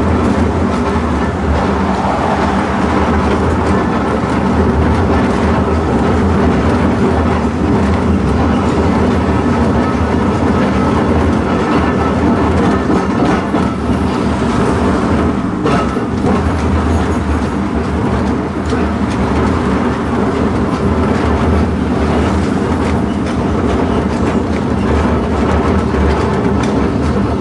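Horse tram's wheels rolling on the street rails, a steady rumble with some rattling clatter.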